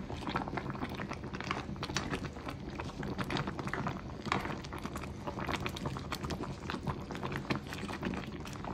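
Sinigang broth boiling in a wok packed with pechay: a steady bubbling made of many small pops.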